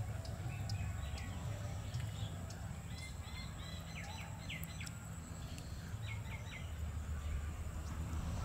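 Small birds chirping in short, quick calls, in a cluster near the middle and again later, over a steady low rumble.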